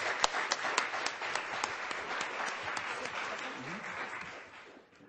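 Audience applauding, with many hands clapping at once, dying away near the end.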